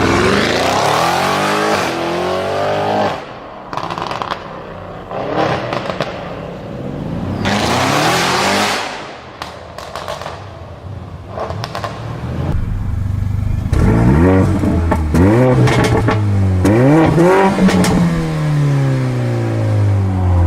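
A high-performance car's engine revving up and down, with sharp crackles and pops from the exhaust as the revs fall. Near the end come several quick throttle blips and a long drop in revs.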